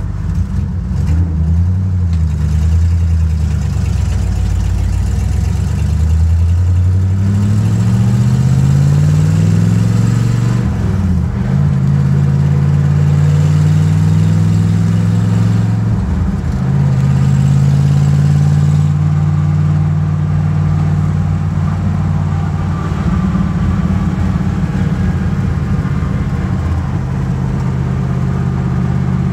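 1965 Ford Galaxie 500's 351 Windsor V8, heard from inside the cabin, pulling away through the gears of its four-speed Toploader manual. The revs climb and fall back twice, at upshifts about ten and sixteen seconds in, then the engine runs steadily at cruise.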